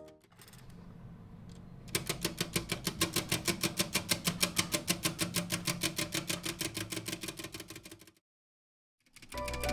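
Clockwork ticking from a 3D-printed plastic tourbillon escapement: a fast, even tick, about six a second, fading a little before it stops suddenly.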